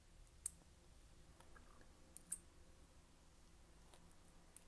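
Pre-decimal sixpence coins clicking against one another as they are handled and sorted in the hand: a few sharp, isolated clinks, the clearest about half a second in and just over two seconds in.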